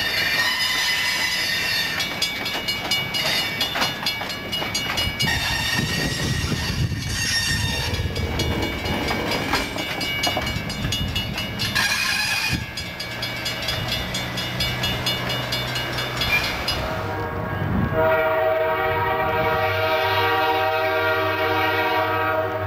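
Conrail freight cars rolling through a road grade crossing with clatter and high metallic ringing; it fades to a low steady hum once the train has cleared. About 18 s in, a train horn sounds one long blast of several notes, lasting about five seconds.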